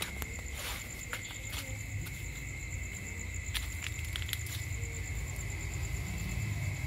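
Night insects trilling steadily at two high pitches, one a fast pulsing trill. Scattered light clicks and steps sound over a low rumble that builds slightly toward the end.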